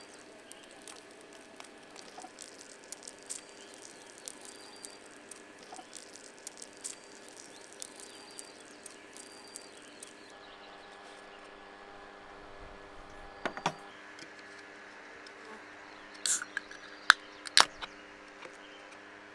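Bread rolls frying in butter in a carbon-steel pan, the fat crackling and spitting in quick fine pops. Near the end a beer can is cracked open, a few sharp metal clicks from the ring pull and a brief hiss.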